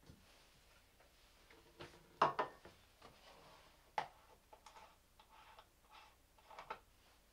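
Kitchen handling sounds as a wall cupboard is opened and a drinking glass and drinks carton are got out: a cluster of knocks about two seconds in, a sharp click about four seconds in, then lighter taps and rustles.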